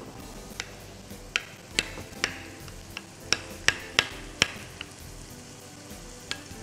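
A metal spoon clinks against an oval glass baking dish as chicken pieces are stirred with spices, giving about ten irregular clicks that stop about five seconds in. Under it runs a faint steady sizzle of onions and peppers frying in a pan.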